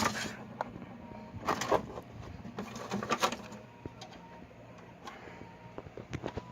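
A PowerMac G4 power supply being worked loose and pulled out of its metal case: several short bursts of scraping and clattering with scattered clicks and knocks.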